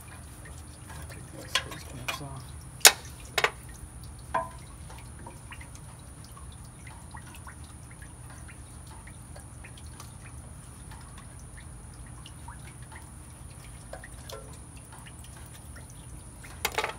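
Hand tools clinking and knocking against the metal of a tractor's radiator and engine: a few sharp clinks in the first few seconds, the loudest about three seconds in, then a long stretch of steady low hum, and another couple of clinks near the end.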